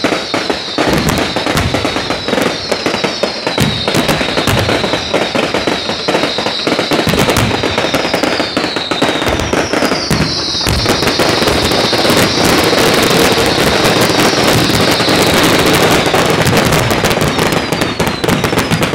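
Fireworks display: rapid crackling and bangs from bursting aerial shells, with repeated whistles that fall in pitch. About ten seconds in, a heavy bang sets off a denser, louder barrage of crackles that keeps going.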